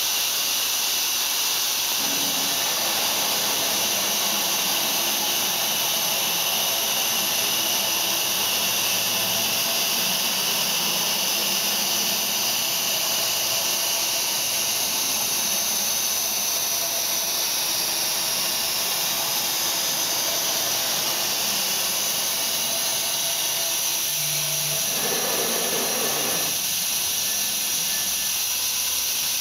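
2001 C.R. Onsrud 3-axis CNC router running with a steady high-pitched whine and hiss while its gantry travels toward the tool changer. A short, louder mid-pitched noise comes about 25 seconds in.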